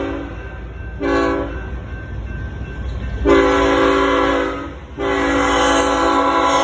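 BNSF freight locomotive's air horn sounding a chord in repeated blasts: a short blast about a second in, a long blast from about three seconds, and another long blast starting about five seconds in. Under it runs the steady rumble of the passing manifest freight train.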